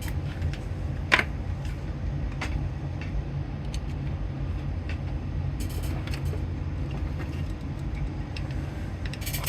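Small clicks and taps of a soldering iron and its tip being handled and fitted, the loudest about a second in and a cluster near the end, over a steady low hum.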